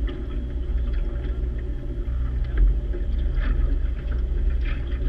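Water lapping and splashing just below a camera held close to the surface of a moving craft, with short irregular splashes over a steady low rumble.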